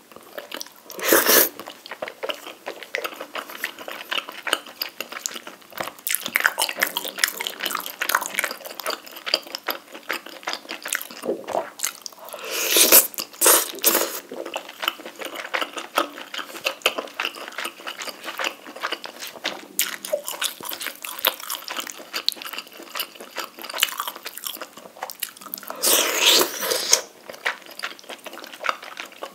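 Wet chewing and mouth sounds of someone eating rapokki (rice cakes and ramen noodles in spicy sauce), with dense small smacks and clicks throughout. Louder bursts come about a second in, around 13 seconds and near 26 seconds.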